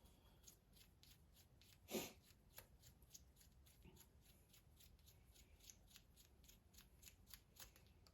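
Faint run of small irregular clicks and ticks from a 2 mm hex driver being turned by hand to start a screw into plastic, with one louder click about two seconds in.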